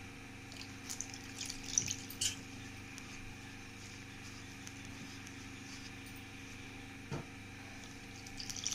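Faint rustling and soft scratching of a hand rubbing oil into dry flour in a plastic bowl, the scratches clustered in the first two seconds, over a steady low hum.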